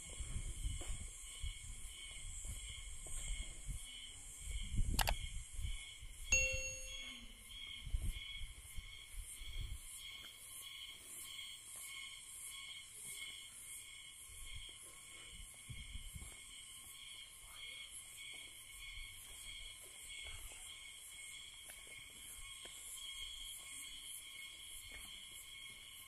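Forest ambience of an insect chorus, a steady high pulsing chirr that repeats a couple of times a second. Low rumbling and thumps come through in the first ten seconds, with a sharp click about five seconds in and a brief ringing tone just after six seconds.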